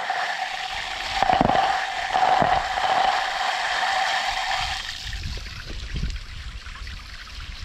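Strong water jet rushing from a homemade ejector nozzle made of sewer pipe and a plastic bottle, fed by an electric pump, and splashing down into dense vegetation. A steady whine sits over the rush for the first half and stops a little after halfway.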